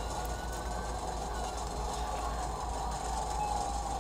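Steady rumbling road and engine noise of a car driving at highway speed, with a faint wavering tone above it.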